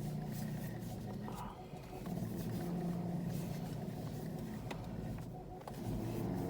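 Car steering creaking as the steering wheel is turned: a drawn-out, pitched squeaky groan in long strokes with brief breaks between them.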